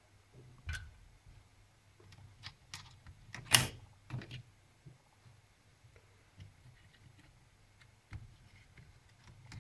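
Scattered small clicks and taps of hands and tools working on an opened netbook's internals as parts are unplugged and lifted out. One sharp, loud click comes about three and a half seconds in.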